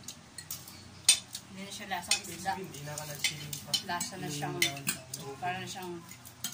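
Spoons and forks clinking and scraping on plates as several people eat, in irregular clinks, the loudest about a second in.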